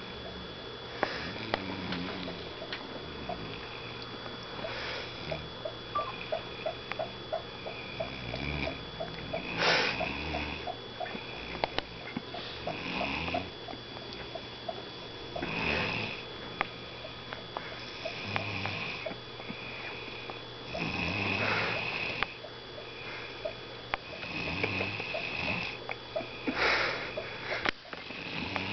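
Snoring during sleep, with one noisy breath about every three seconds.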